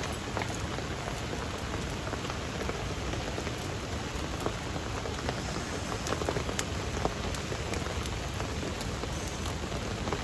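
Steady rain falling, with many sharp ticks of single drops scattered through it.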